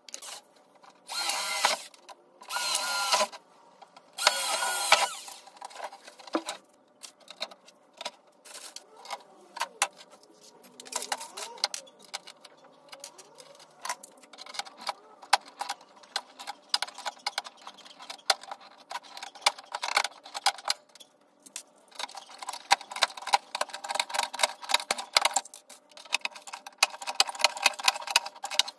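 Power drill running in three short bursts, its pitch wavering, followed by scattered clicks and taps of tools and parts being handled, and a dense run of rapid clicking near the end.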